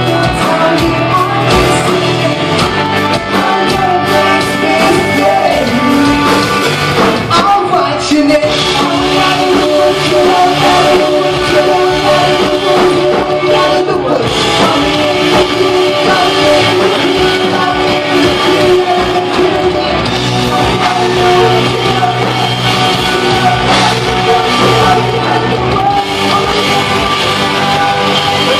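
A rock band playing live, with singing over electric guitar, bass and drums, loud and continuous.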